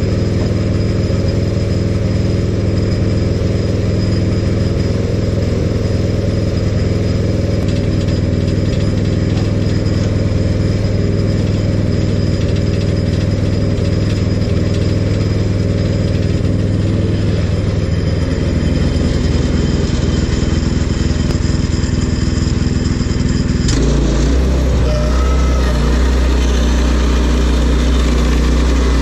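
Sawmill engine running steadily under load. About three-quarters of the way through it changes abruptly to a deeper, lower tone.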